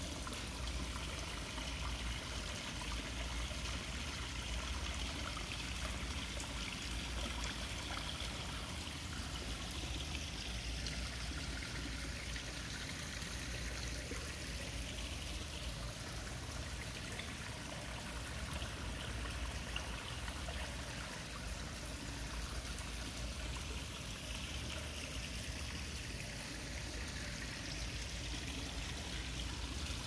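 Small garden waterfall spilling over stones into a goldfish pond: a steady trickling, splashing flow of water.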